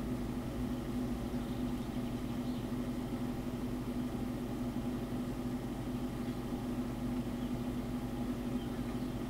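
Computer cooling fans humming steadily with a strong low tone, the machine under full processor load.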